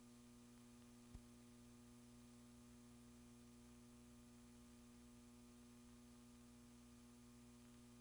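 Near silence: a steady low electrical hum with faint hiss, broken once by a short click about a second in.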